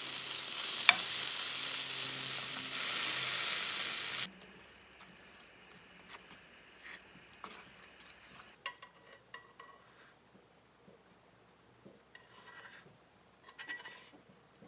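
Food sizzling in a hot pan, a loud steady hiss that cuts off abruptly about four seconds in. After that, only faint scattered clinks and taps.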